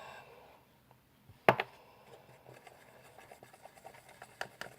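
A sharp click about a second and a half in, then a run of quick light ticks and scrapes: purple gouache being stirred into PVA glue in a small jar for slime.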